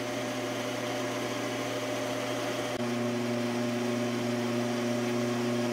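Metal lathe running, a steady motor and gear hum with a whine, as it turns and then drills a small metal spacer. A second, lower whine joins about three seconds in.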